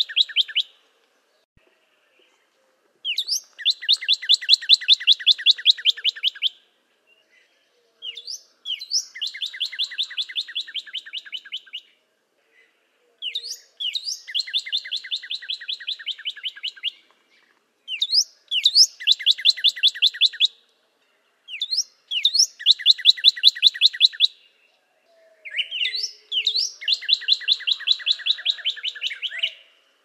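Northern cardinal singing a repeated phrase: one or two quick slurred whistles run into a fast, even trill of about ten notes a second. The phrase lasts about three seconds and comes six times, with short pauses between.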